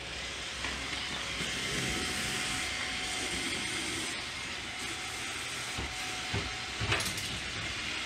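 Roomba robot vacuum running, its suction motor and brushes giving a steady whirring hiss as it drives down a cardboard ramp. A few light knocks come about six to seven seconds in.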